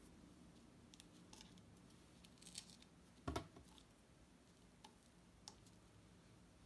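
Faint, scattered scratching and light clicking of fingers rubbing and picking at a sand-covered sand-painting card, with one short, louder thump just past the middle.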